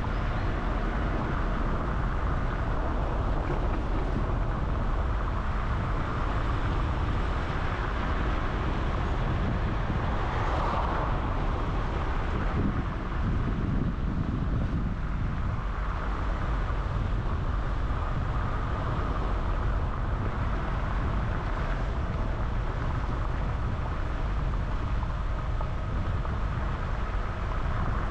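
Steady driving noise of a car on the move: engine and tyres on the road in a low, even rumble, swelling briefly about halfway through.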